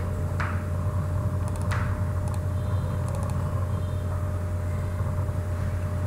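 Steady low background hum, with a few faint mouse clicks in quick pairs as folders are double-clicked open.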